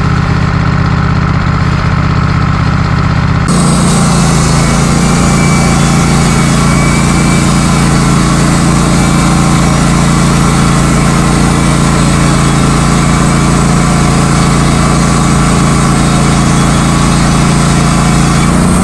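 Wood-Mizer LT15 Go band sawmill running steadily. About three and a half seconds in, the sound changes suddenly and a hiss joins it, then it holds steady.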